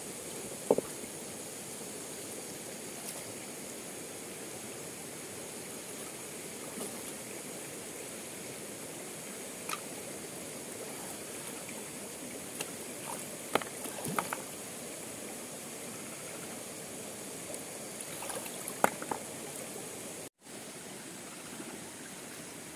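Shallow rocky stream flowing with a steady rush of water. A few brief sharp splashes come as a person moves about in the water, and the sound drops out for an instant about 20 seconds in.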